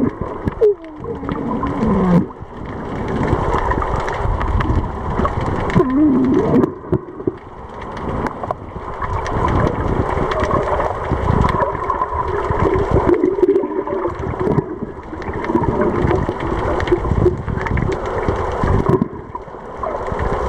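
Underwater sound picked up by a camera held underwater: a muffled, churning water noise with gurgling, and a few wavering, falling tones in the first few seconds.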